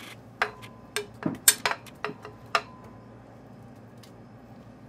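Kitchenware being handled: a quick run of clinks and knocks over about two seconds, two of them with a short glassy ring.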